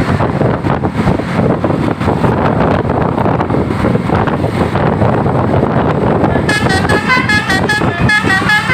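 A tour bus running close by, then about six and a half seconds in its telolet horn, a multi-tone musical air horn, plays a quick melody of shifting notes.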